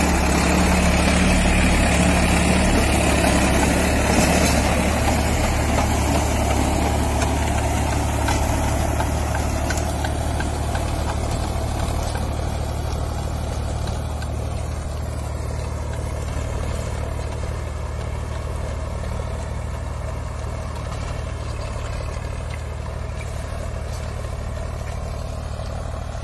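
Solis Yanmar 5015 4WD tractor's diesel engine running steadily under load while driving a 7.5-foot rotavator through hard soil, with the rotavator's tilling noise; the sound slowly fades as the tractor moves away.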